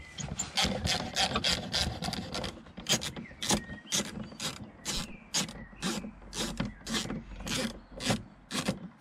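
Ratchet driver with a thin T20 Torx bit clicking in quick repeated strokes, about three a second, as a door-trim screw is backed out.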